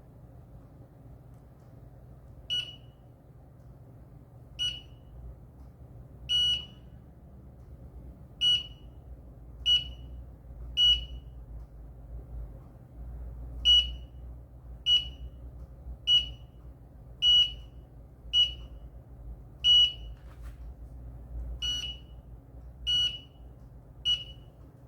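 Short high-pitched beeps from an industrial HMI touch-panel terminal's beeper, about fifteen of them at irregular intervals one to two seconds apart, each beep sounding as the touchscreen is pressed. A low steady hum sits underneath.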